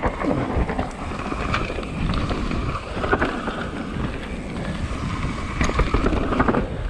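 Mountain bike riding fast down a loose dirt trail: tyres rolling over dirt, with scattered clicks and rattles from the bike, and wind rumbling on the microphone.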